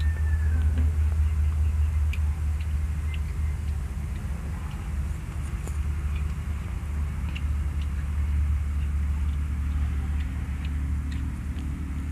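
A steady low rumble that swells and eases slowly, with faint scattered clicks over it.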